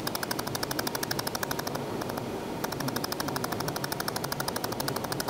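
ALPHA LASER ALFlak laser welder firing rapid pulses into an injection mold's engraving. It makes an even train of sharp snaps, about ten a second, with a half-second break about two seconds in.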